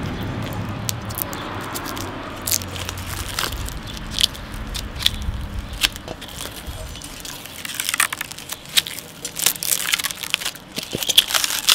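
Protective plastic film being peeled off the clear side panel of a PC case: irregular crackling and crinkling of the thin plastic, getting denser and more frequent in the last few seconds.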